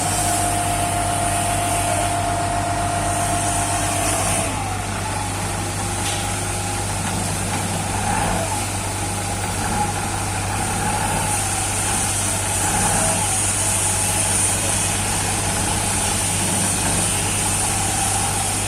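Skid-steer loader engine running steadily under work, with a whine that shifts about four seconds in and wavers in pitch afterwards.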